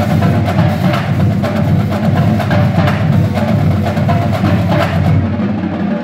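High school marching drumline playing a fast, dense rhythm on snare drums and bass drums.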